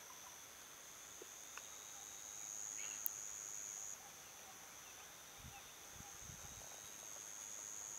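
An insect shrilling in one steady, high, unbroken note, growing louder for a second or so around three seconds in and again near the end. A few soft low thumps come just past the middle.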